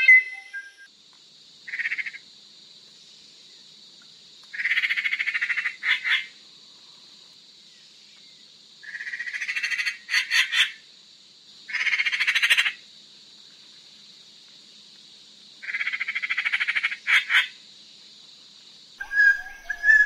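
Black magpie (Platysmurus leucopterus) calling: five rapid rattling calls, each about a second long, with pauses of a few seconds between them. Three are followed by two or three sharp clicking notes. A steady high hiss runs behind the calls.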